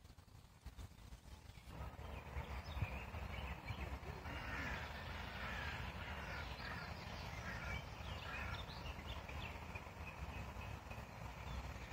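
Birds chirping and calling in short repeated notes over a steady low rumble of outdoor background, starting about two seconds in.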